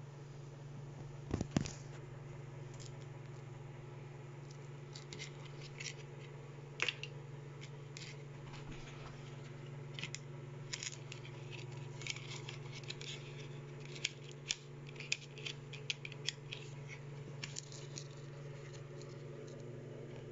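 Hands handling the AirTag's cardboard box and paper inserts: scattered small clicks, taps and scrapes, a few louder ones in the first seven seconds and busier in the second half. A steady low hum runs underneath.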